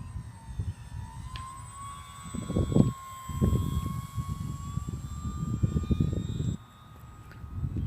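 Electric motor and propeller of a ParkZone Focke-Wulf Fw 190A-8 RC warbird whining steadily in flight, its pitch wavering slightly with throttle, over bursts of low wind rumble on the microphone.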